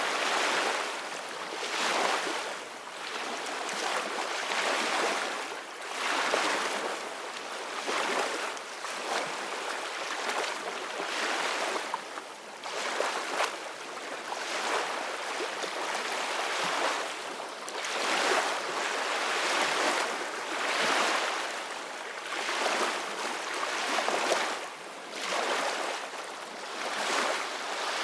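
Ocean waves washing in, a steady hiss of surf that swells and ebbs about every two seconds.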